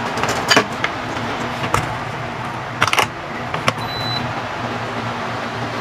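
A few sharp clicks and knocks of the air fryer being handled and plugged in, then one short high electronic beep about four seconds in as its control panel lights up on power-up. A steady low hum runs underneath.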